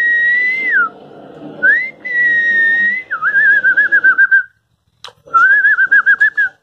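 A person whistling: two long held notes, each sliding up at the start and dropping off at the end, then two warbling trills at a slightly lower pitch with a short break between them. A sharp click sounds in the break.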